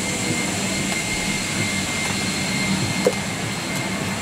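Steady rushing cabin noise inside a parked Boeing 777-300ER, the air-conditioning and ventilation running, with a faint steady high tone over it. There is a single short click about three seconds in.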